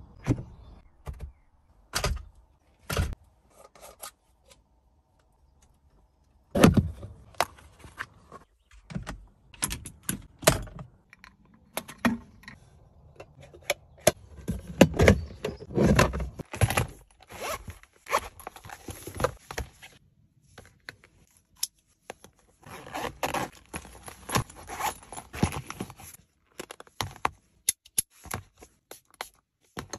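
Handling noise of small plastic car accessories being fitted and unpacked: irregular clicks, knocks and scrapes, with a quiet gap of about two seconds starting about four seconds in.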